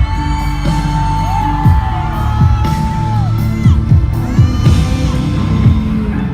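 Live pop music over an arena sound system, recorded from the audience: a held melody line that bends in pitch over deep bass drum hits that drop in pitch.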